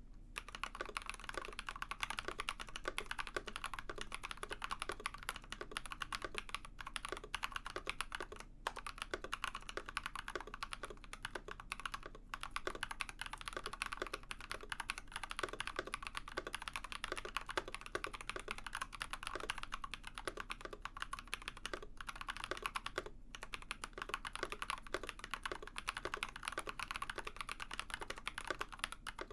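Continuous fast typing on an Ikki68 Aurora mechanical keyboard fitted with Builtbynim long-pole linear switches (long POM stem, nylon top housing, polycarbonate bottom housing), giving a rapid clacky patter. There are a few brief pauses.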